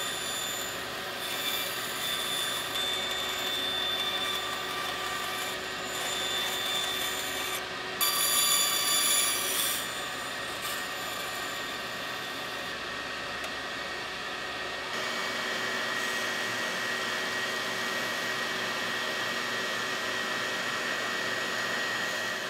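Bandsaw cutting a drilled wooden blank into fidget-spinner shapes, louder for a couple of seconds as the blade bites about eight seconds in. About fifteen seconds in it gives way to a small benchtop belt sander running with a steady high whine.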